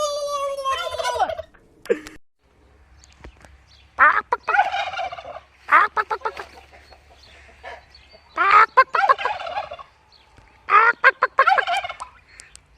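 Domestic turkeys gobbling: about five separate rattling gobbles, each lasting about a second, with short pauses between them.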